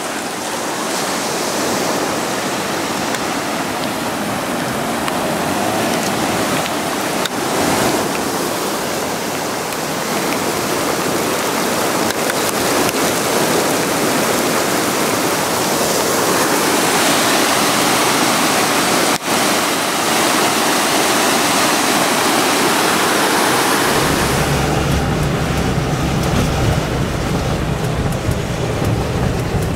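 Floodwater rushing and pouring across a street: a steady noise of running water. About 24 seconds in it gives way to the low rumble of a car engine heard from inside the cabin.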